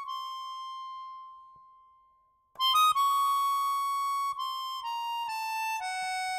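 A solo melody instrument playing one note at a time: a high held note fades away to silence, then after a brief gap a new phrase starts and steps slowly downward note by note.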